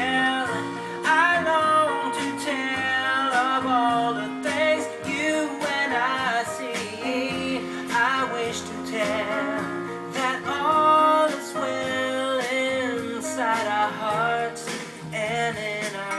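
Music: a song with guitar accompaniment and a melodic lead line that wavers in pitch over steady held chords.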